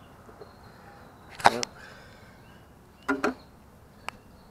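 Sharp knocks and clicks of the replacement inverter water pump's steel bracket being handled and set against the car body: the loudest knock comes about a second and a half in, a second one with a brief ring about three seconds in, and a light click near the end.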